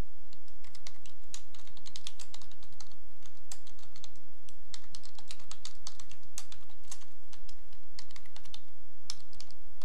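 Computer keyboard typing: runs of quick keystrokes with short pauses between them.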